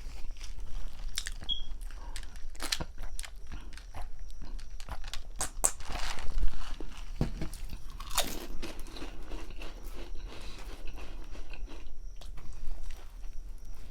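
Close-up eating sounds of a grinder sandwich: crunching bites into the bread and wet chewing, irregular, with a louder run of crunching about six to eight seconds in.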